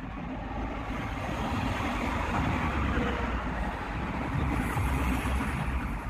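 Daikin RYP50CBV packaged air-conditioner outdoor unit running, a steady rushing noise over a low rumble.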